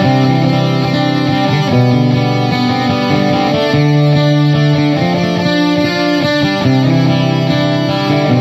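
Background music: an electric guitar track with effects and some distortion, sustained notes changing about once a second.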